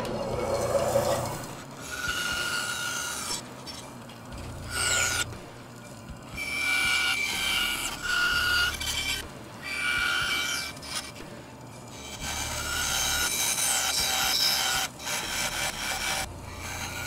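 Jet bandsaw switched on with a click, then its motor humming while the blade cuts through blocks of wood in about six separate passes. Each pass brings a rasping whine that stops between cuts. The blade is dull enough to scorch the wood, which the maker takes as a sign it needs replacing.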